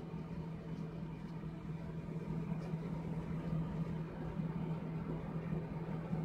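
A steady low hum with one even pitch throughout, and a few faint light clicks in the first half.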